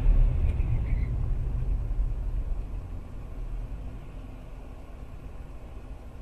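Low rumble of a car driving on the road, growing steadily quieter from about two seconds in.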